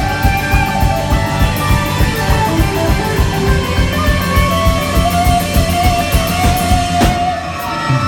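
Live rock band playing an instrumental passage: electric guitars and bass over a steady drum beat, with one note held for about two seconds past the middle. The drums drop out briefly near the end.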